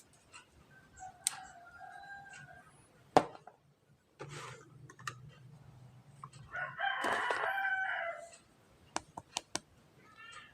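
A rooster crowing once, a loud call of about a second and a half in the second half, with a quieter pitched call before it. Sharp clicks and a knock from handling, the loudest about a third of the way in.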